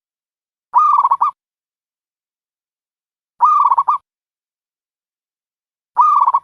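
Dove cooing: three short, rapidly pulsed calls about two and a half seconds apart, with dead silence between them.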